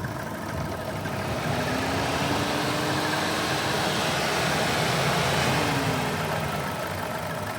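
Car engine running with steady road or cabin noise, heard from inside the car, together with a squeaking sound that the driver cannot place and finds worrying in a car they have only just got.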